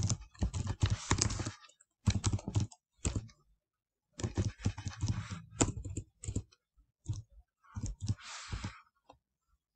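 Typing on a computer keyboard: runs of quick keystroke clicks, with a short pause about three and a half seconds in, stopping shortly before the end.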